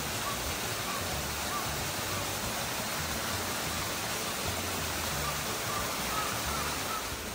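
Small waterfall pouring down a rock face, a steady rush of water.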